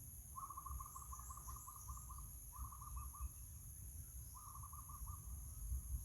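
An animal calling in rapid series of short, clipped notes, about six a second, in three bouts: a long run of about a dozen notes, then two shorter runs of four or five. A steady high-pitched drone runs underneath.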